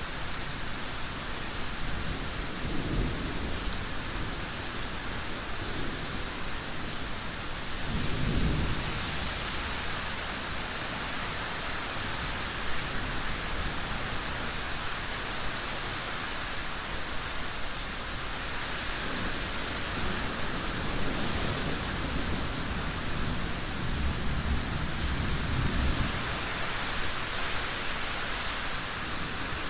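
Thunderstorm: a steady hiss of heavy rain, with low thunder rumbling three times, about two seconds in, around eight seconds in, and again around twenty-five seconds.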